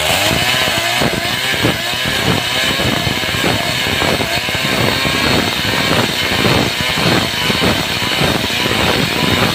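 Stihl chainsaw running hard under load, ripping lengthwise through a thick wooden slab. The engine note wavers in quick pulses as the chain bites into the wood.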